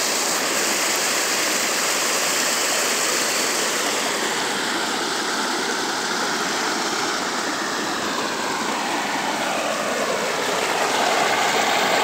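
Muddy floodwater from an overflowing dam rushing over rocks in a small creek cascade: a steady, dense rush of water that grows a little louder near the end.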